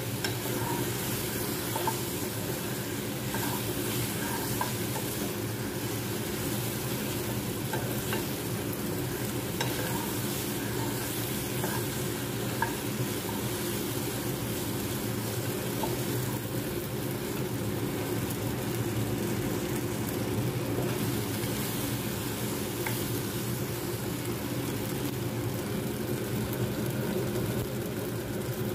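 A spatula stirring and scraping pasta around a nonstick frying pan, with a light sizzle of frying and small taps of the spatula, mostly in the first half. A steady low hum runs underneath.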